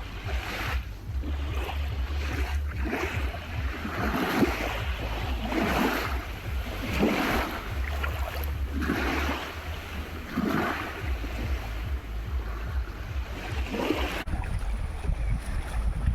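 Small sea waves washing in one after another, a hissing swell every second or so, with wind rumbling on the microphone.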